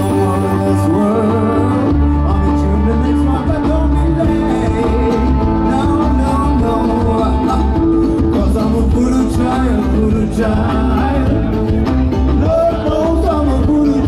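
Live band music played loud through a PA: a heavy, pulsing bass line with drums and percussion under a plucked string melody and some singing.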